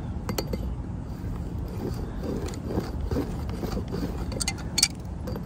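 Channel-lock pliers working the cut end of a type L copper pipe to knock down the lip left by a tube cutter, giving a few short sharp metallic clicks, the loudest near the end, over a steady low background rumble.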